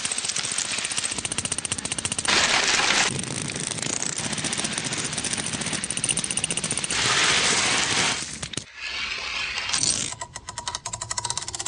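Many metal coins clinking and clattering in a rapid, dense stream, with louder surges. Near the end it breaks into a run of separate quick clicks.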